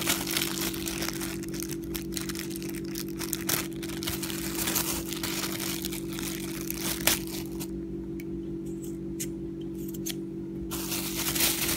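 Clear plastic packaging crinkling and rustling in irregular bursts as it is handled and pulled off a tripod, with one sharp click about seven seconds in and a steady low hum underneath.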